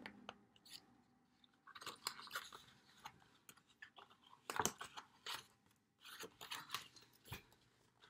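Faint rustling, crackling and tapping of a picture book's stiff pages as they are handled and turned, with a few sharp clicks, the loudest about halfway through.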